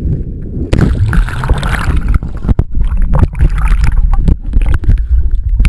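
Pool water splashing and sloshing around a waterproof action camera held at the surface, heard through its housing as a loud, muffled wash with knocks. A brighter splash comes about a second in.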